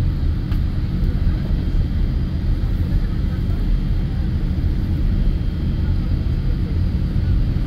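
Airliner jet engines at low power heard from inside the passenger cabin, a steady low rumble as the plane rolls slowly just before its takeoff run.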